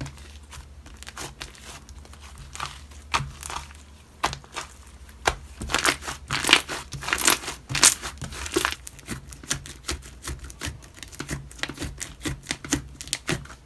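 Homemade slime being squeezed and stretched by hand, giving irregular crackles and small pops that come thickest in the middle.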